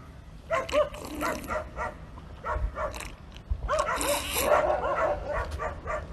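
Short, repeated high calls from an animal, coming in quick clusters and loudest about four seconds in, over a low steady rumble.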